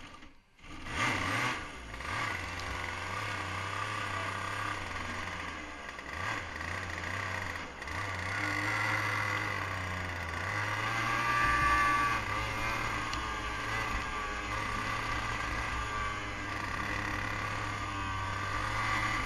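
Go-kart engine starting up about a second in, then running while the kart drives around the track, its note rising and falling.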